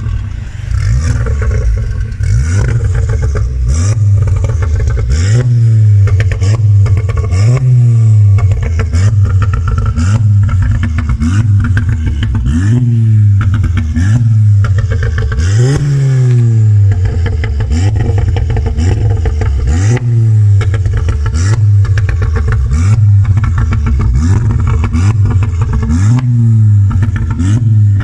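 VW Golf 7.5 GTI Performance's turbocharged 2.0-litre four-cylinder, breathing through an Armytrix turboback exhaust with the catalytic converter and particulate filter removed, revved in repeated blips about every two seconds. Loud pops and crackles sound on each lift-off; an ECU tune with burbles and crackles switched on produces them.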